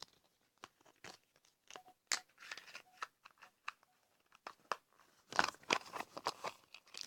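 Plastic toy packaging being handled and torn open: irregular crinkling, tearing and small clicks, busiest in a dense flurry near the end.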